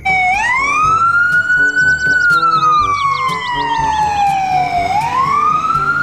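Ambulance siren in a slow wail: the pitch rises for about two seconds, falls steadily for about three, then rises again near the end, over background music with a steady beat.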